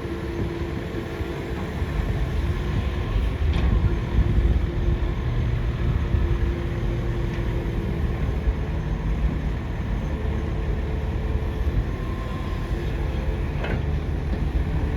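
Hydraulic excavator working with a steady mechanical running sound and a low rumble. A steady whine runs through the first half and fades about halfway through.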